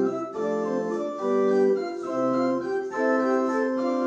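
Organ music played live: slow, sustained chords that change about once a second.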